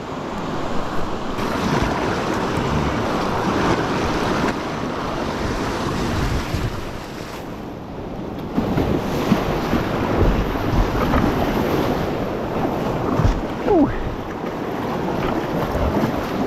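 River whitewater rushing steadily over a small rocky drop, with wind buffeting the microphone. The sound shifts abruptly about halfway through.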